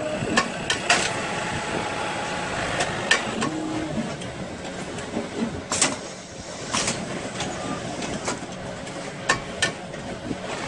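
Uzu UZ-PL59 automatic placket-setting machine working between pieces: a string of sharp pneumatic clacks and short air hisses as its clamps and folding plates move, over a steady mechanical hum.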